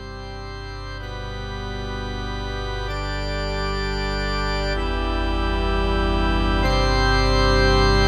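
Background music: sustained chords that change about every two seconds, fading in and growing steadily louder.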